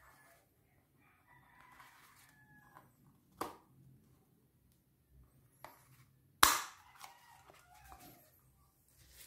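Black polymer pistol holster being handled and adjusted: plastic rubbing and squeaking, a sharp click about three and a half seconds in, and a loud sharp snap of the plastic parts about six and a half seconds in.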